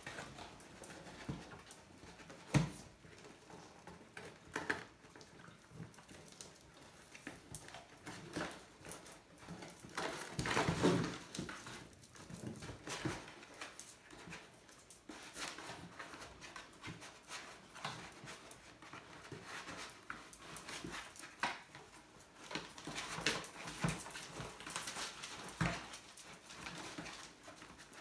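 Puppies play-fighting around a cardboard box: a busy scuffle of paws and claws pattering on the hard floor and the box being knocked about, in many short sharp clicks and knocks, with a louder, longer burst about ten seconds in.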